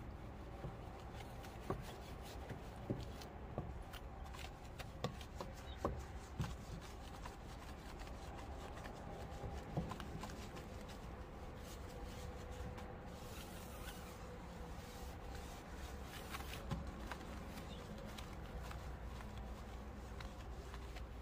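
Wheel brush scrubbing a wet alloy car wheel: soft rubbing with scattered light clicks and knocks as the brush catches the rim and spokes, over a low steady hum.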